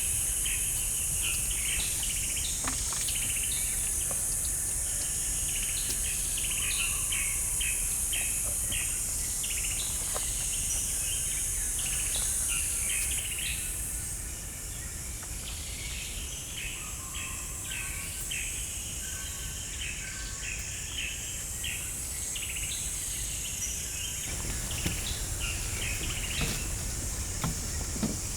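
Outdoor ambience of many short bird chirps and calls scattered throughout, over a steady high-pitched insect drone and a low background rumble.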